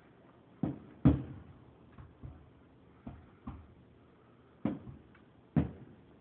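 Fireworks exploding, heard from indoors through a window as muffled thuds: about eight irregular booms, the loudest about a second in.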